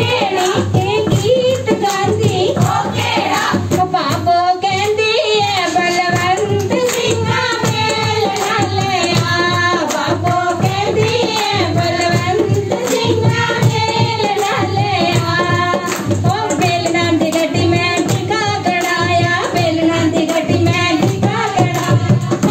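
Women singing boliyan, the folk couplets sung for giddha dancing, as one continuous melody over a steady, quick beat.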